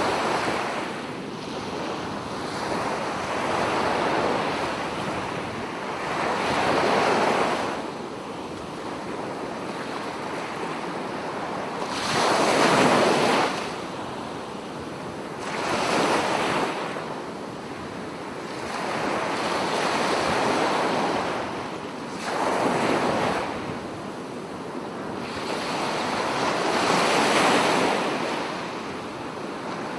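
Ocean surf: waves surge in and wash back in repeated swells, about eight in half a minute, the loudest a little before halfway.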